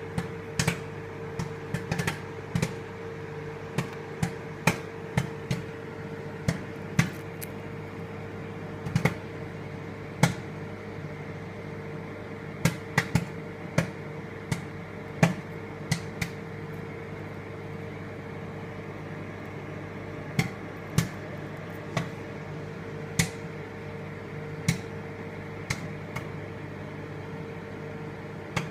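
Microwave oven running with a steady hum while popcorn pops inside it: sharp, irregular pops, frequent at first and thinning out over the second half as the popping nears its end.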